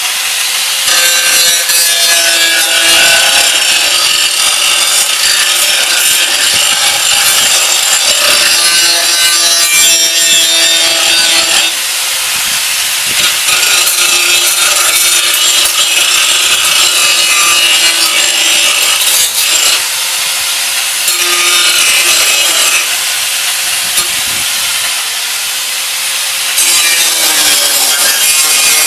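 Electric angle grinder cutting into the rusted steel of a riding-mower deck: a loud, steady grinding with the motor's hum under it, easing off briefly twice.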